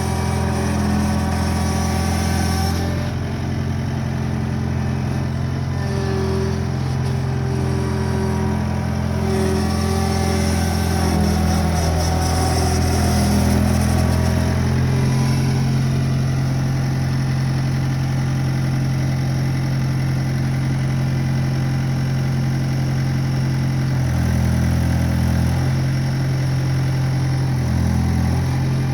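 Skid steer engine running steady, its pitch shifting a few times.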